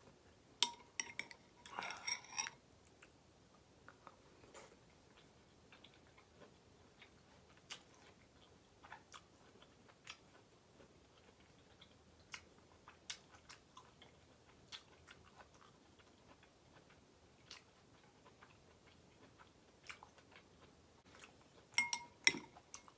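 Close-miked eating: a sip of ramen broth slurped from a metal spoon about two seconds in, then soft, scattered wet mouth clicks of chewing. Near the end a metal spoon clinks in a glass bowl.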